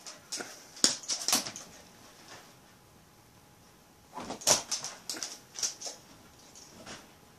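Dog leaping about on a sofa chasing bubbles: two flurries of short sharp clicks and scuffles, one just under a second in and another about four seconds in, with quiet between.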